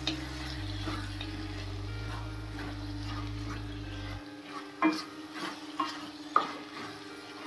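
A spatula stirring mogri (radish pods) and potatoes in gravy in a stainless steel kadhai over high flame, with a light sizzle and a few sharp clinks of the spatula against the pan in the second half. A steady low hum underneath stops about four seconds in.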